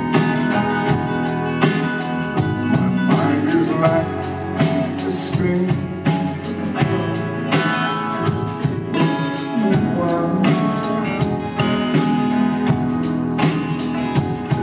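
Live band playing a slow song: strummed acoustic guitar, electric guitars, bass guitar and a drum kit keeping a steady beat.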